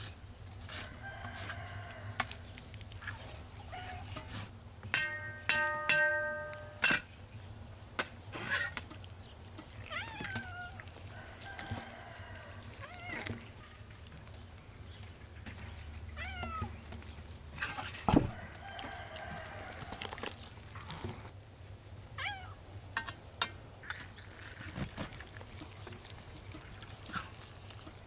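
Knife and hands working a raw turkey carcass on a metal tray: scattered clicks and knocks, the loudest about two-thirds of the way through. Farmyard fowl call behind it, with one held call about five seconds in and short falling chirps later on.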